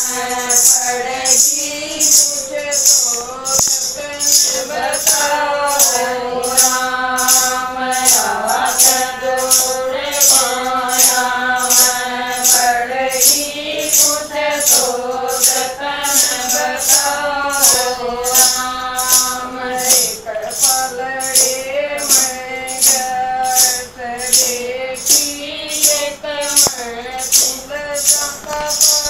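Women singing a Haryanvi devotional bhajan, keeping time with handheld clappers (kartal) that jingle on every stroke, about two strokes a second.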